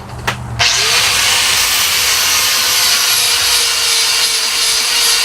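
Angle grinder switched on about half a second in, its motor whine rising briefly to a steady pitch. Its disc then grinds steadily against the anvil's steel face to clean off the surface.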